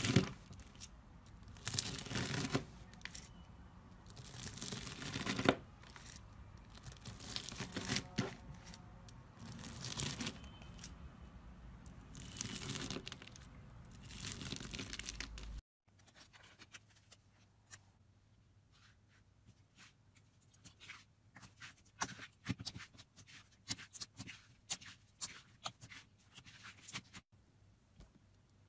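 Slime ASMR handling sounds: long tearing swells as the material is pulled and pressed, then, after a sudden cut, a quieter run of many quick, crisp crackles.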